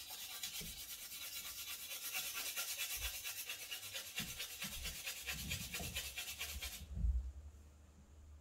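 Charcoal stick rubbed back and forth on sandpaper in quick, even strokes, sharpening it to a thin, long point. The rubbing stops about seven seconds in, followed by a low knock.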